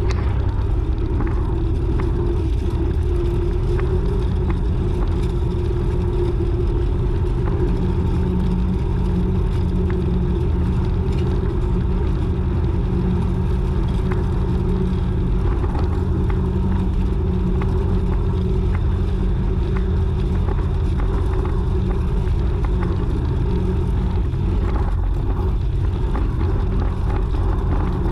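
YuMZ-6 tractor's four-cylinder diesel engine running steadily under way, with an even low drone and no change in revs.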